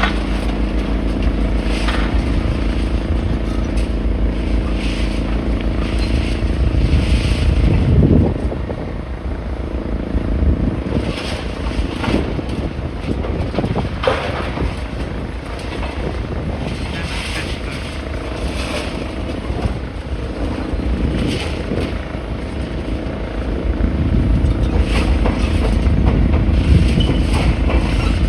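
An engine running steadily, with a brief rise and fall in pitch about eight seconds in.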